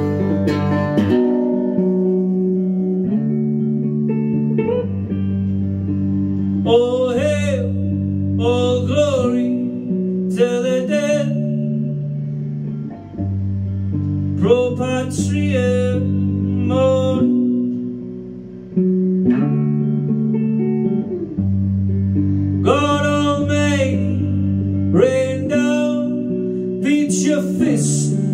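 Live semi-hollow electric guitar played through an amplifier, with a steady line of low notes that changes every second or two. A man's voice sings over it in several stretches.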